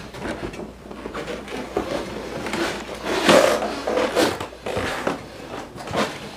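Irregular scraping, rustling and knocking in a small room, loudest about three to four seconds in.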